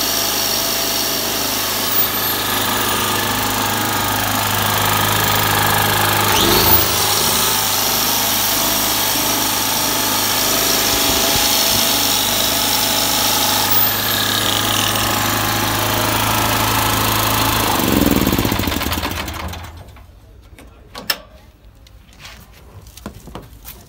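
Corded angle grinder spinning freely, powered by a 2.5–2.8 kW petrol generator whose OHV engine runs steadily under the load. About eighteen seconds in, the sound winds down in pitch and stops, leaving only a few faint clicks.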